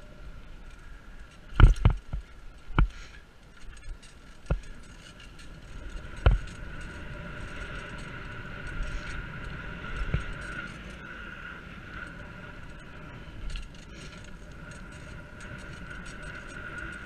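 Bicycle ride heard from a camera on the bike: several sharp knocks as the bike jolts over bumps in the first few seconds, then steady rolling noise of the tyres on pavement with a constant high hum.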